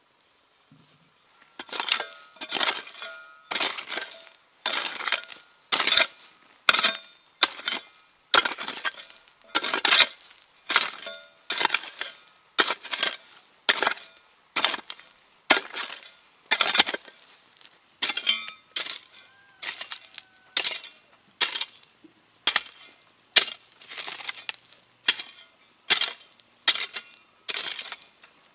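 Metal hoe blade chopping into dry earth in steady strokes, a little more than one a second, each stroke a short sharp impact with a gritty scrape.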